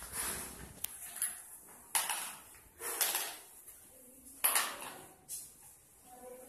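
Small plastic balls clattering as they are rummaged out of a plastic basket and dropped into plastic bowls: five or six short, irregular knocks.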